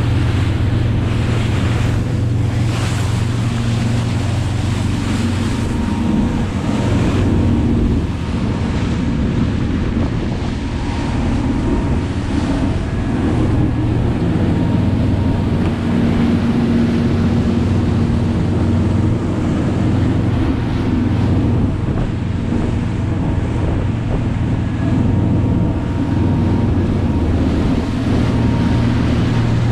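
Motorboat under way at speed: a steady low engine hum under the rush and splash of water against the hull, with wind buffeting the microphone.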